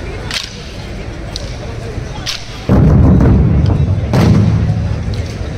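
Dhol-tasha drumming in a street procession. Sharp drum strokes come about once a second, then about halfway in, loud, dense pounding of big dhol drums sets in suddenly.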